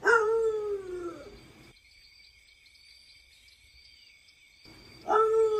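A dog howling twice: a long howl that slides down in pitch right at the start, and a second falling howl about five seconds in.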